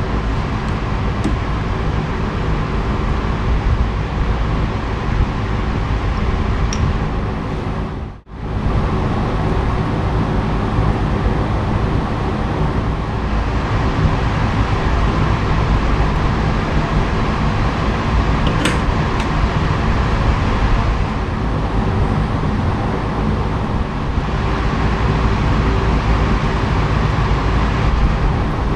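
Steady whirring hum of a motor or fan running, broken by an abrupt dropout about eight seconds in, with a faint click or two.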